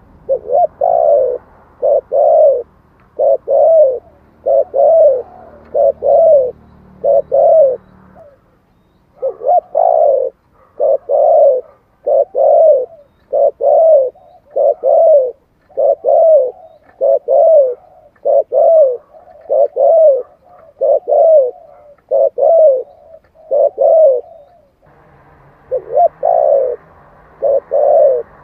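Spotted dove cooing in a fast, steady run of short coos, about one every three quarters of a second, with a brief break after about eight seconds.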